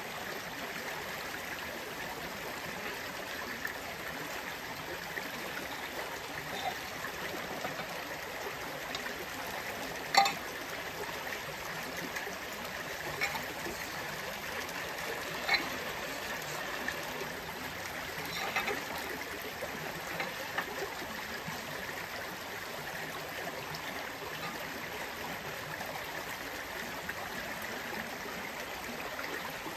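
Creek water running steadily, with a few short knocks over the stream noise, the loudest about ten seconds in.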